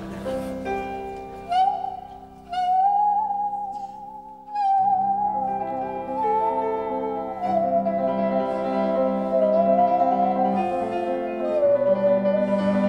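A bowed musical saw plays a slow melody with a wavering vibrato and sliding pitch over piano chords. The piano sounds alone at first, and the saw comes in about a second and a half in.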